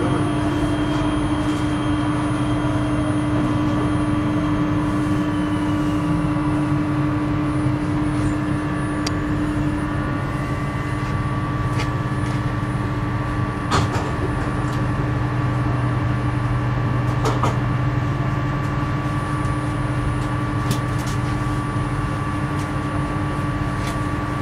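Inside a Prague metro car: the train's motor whine falls in pitch as it slows into a station and stops, then a steady electrical hum from the standing car, with a few scattered clicks and knocks, the loudest about two-thirds of the way through.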